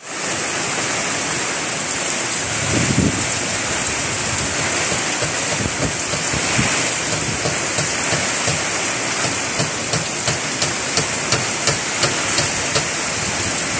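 Heavy tropical-storm rain and gusting wind, a steady loud hiss with low gusty rumbles. In the second half comes a run of sharp ticks, two or three a second.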